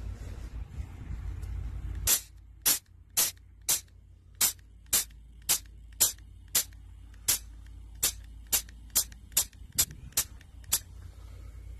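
Short sharp hisses of compressed air from the filling valve of a Bauer PE 100 TB breathing air compressor, about seventeen in a row at roughly two a second, after a steady hiss dies away about two seconds in.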